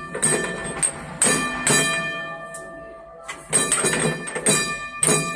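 A tram's bell struck repeatedly, about eight sharp ringing strokes in two quick groups with a pause of about a second near the middle.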